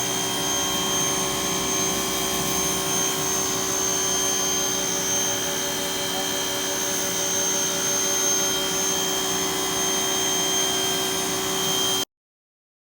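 Pressure washer running steadily, a loud, even machine whine with a hiss of spray, which stops abruptly near the end.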